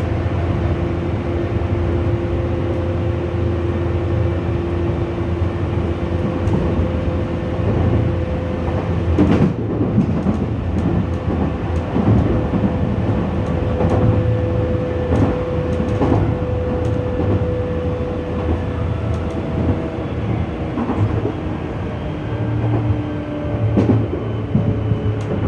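Tokyu 8500 series electric train running at speed: a steady low rumble with a held hum and whine. Wheels clatter over rail joints in a run of clicks through the middle.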